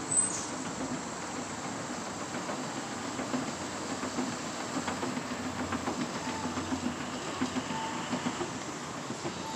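Escalator running under a rider: a steady mechanical rumble with faint irregular clatter from the moving steps. There is one short high squeak right at the start.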